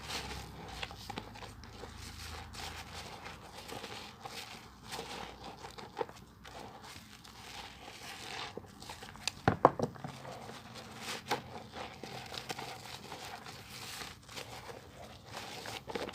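Bar of soap being lathered with water: a steady run of small wet clicks and squishes from the foam, with a louder cluster of squelches about ten seconds in.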